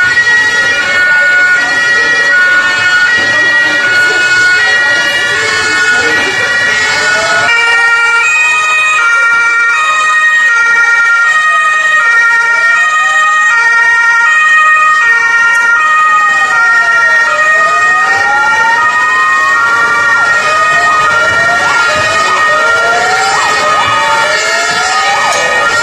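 Several emergency-vehicle sirens sounding at once: two-tone Martinshorns stepping back and forth between two pitches, overlapped by wail sirens slowly rising and falling. From about eight seconds in a steady held tone joins them, and in the last few seconds quick short yelping sweeps come in.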